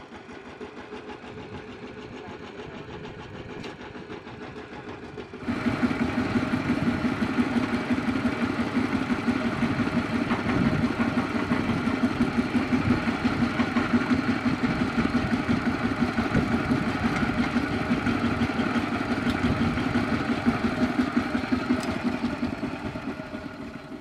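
Walking tractor's single-cylinder engine running with a rapid, even chugging. It gets abruptly louder about five seconds in and stays loud.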